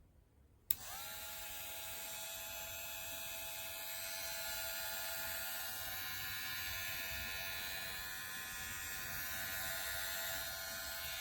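GLAKER cordless hair clipper switched on with a click less than a second in. Its motor spins up briefly in pitch, then runs with a steady buzz.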